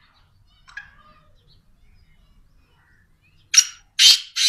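Black francolin calling: a faint short chirp near the start, then three loud, harsh, rasping notes in quick succession from about three and a half seconds in.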